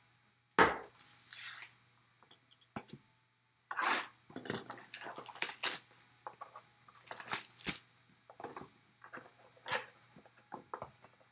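Hands opening a sealed Panini Playbook trading card box: shrink wrap tearing and crinkling, with sharp knocks and taps of the cardboard box. The sounds come in short irregular bursts with gaps between, and a sharp knock about half a second in.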